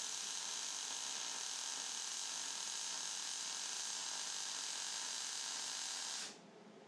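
Jefferson Auto MIG 185 welder running a continuous MIG weld, joining a 40 mm box-section cross member to its end plate: a steady hiss that stops suddenly near the end as the arc is broken.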